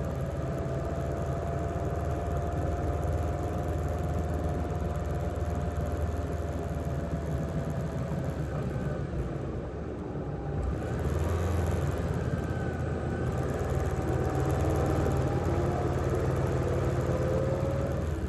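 Kawasaki Vulcan 1700 Vaquero's V-twin engine running under way, with wind and road noise. The engine eases off about halfway through, then picks up again.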